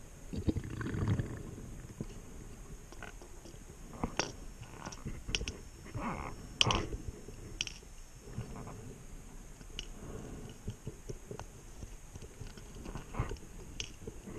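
Underwater, a scuba diver's gear making scattered short clicks and knocks, with a low rumbling rush about a second in.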